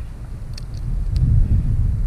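Wind buffeting the microphone, a low rumble that grows stronger about a second in, with a few faint clicks.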